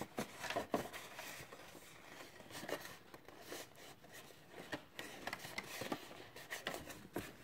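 Cardstock being folded and pressed along its creases by hand: quiet paper rustling with scattered short crackles and taps.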